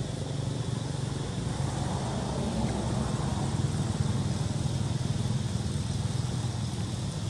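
Road traffic: a motor vehicle's engine running with a steady low rumble that swells for a couple of seconds a few seconds in, as of a vehicle passing.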